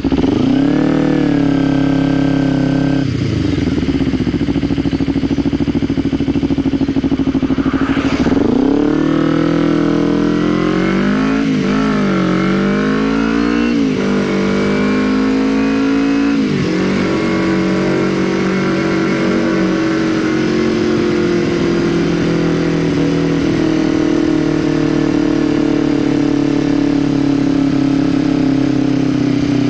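Kawasaki Ninja 250R parallel-twin engine under way, revving up and dropping back several times through gear changes in the first half, about 3 s and 8 s in and between 9 and 17 s, then pulling steadily with a pitch that slowly falls.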